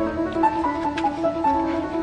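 Instrumental background music: a melody of short, evenly paced notes.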